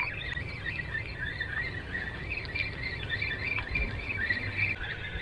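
Continuous high chirping and chattering calls of small birds, with a low rumble underneath.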